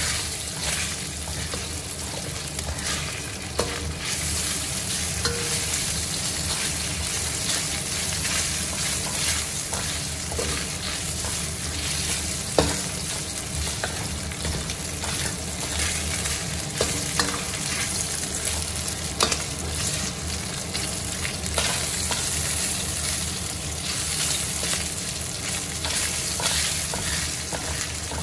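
Pieces of meat frying in oil in a stainless steel wok with a steady sizzle. A metal spatula scrapes and clinks against the pan now and then as the meat is stirred.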